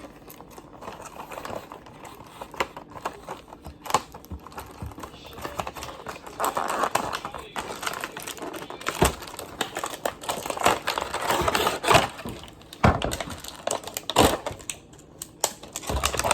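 Slime ingredients being mixed by hand on a plate: a utensil scrapes and taps against it in an irregular run of clicks, busier and louder from about the middle on.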